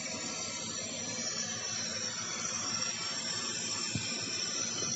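Homemade toy tractor making a steady hissing drone, with one soft knock about four seconds in.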